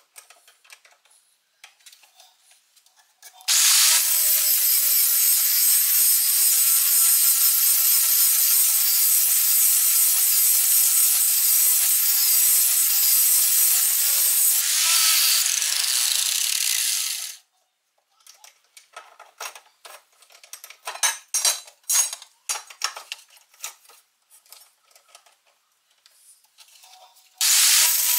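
Angle grinder grinding the edge of a steel lawn mower blade, with a loud, steady grinding noise that runs for about fourteen seconds and then cuts off. A run of scattered clicks and knocks follows, and the grinding starts again near the end.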